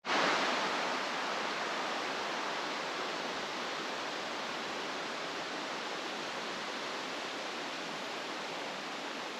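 Steady, even rushing noise that starts abruptly, a little louder in the first second, then holds level.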